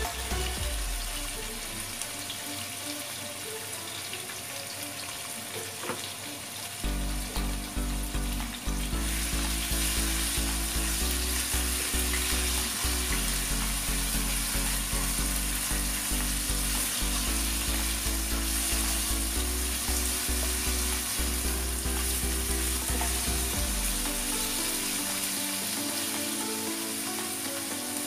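Diced pork frying in hot oil in a wok with onion and garlic, sizzling steadily while it is stirred with a spatula; the sizzle grows louder about a third of the way in.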